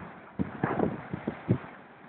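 Gusty, hurricane-force wind buffeting the microphone in irregular blasts, loudest about half a second in and again near a second and a half in.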